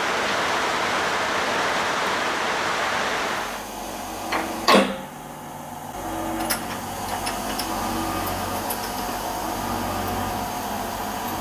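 Metal lathe running with a steady whirring noise that stops about three and a half seconds in. A sharp knock follows, the loudest sound. Then a low machine hum with a few light metallic clicks as a small part is set into a collet chuck.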